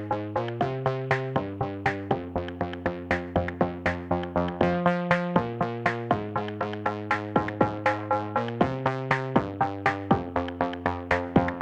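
Electronic dance music from a carnival sound system: a synthesizer melody of short notes, about four a second, over a drum-machine beat.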